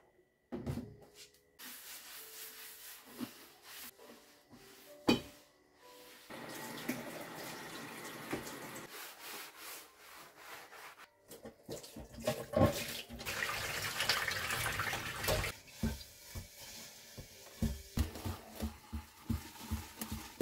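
Kitchen cleaning: water running from a tap at times, a sponge wiping and scrubbing, and many knocks of jars, bottles and utensils being moved and set down, one sharp knock standing out about five seconds in.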